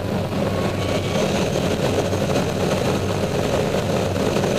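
Steady rushing airflow noise over the canopy of an ASK 21 glider at high speed, as it pulls up out of a dive, with a low hum underneath.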